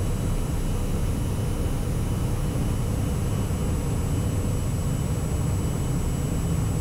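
Daher TBM 910's Pratt & Whitney PT6A-66D turboprop at takeoff power during the takeoff roll, heard from the cockpit as a steady drone with thin high tones over it.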